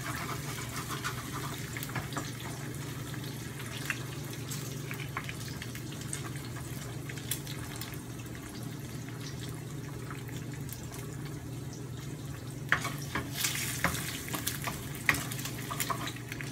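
Eggs frying in hot oil in a stainless steel wok, with a steady sizzle over a low hum. A wooden spatula scrapes and taps the pan near the start and again in a run of clicks near the end.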